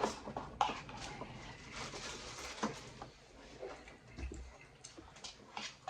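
Quiet eating sounds: a person chewing, with scattered light clicks and taps.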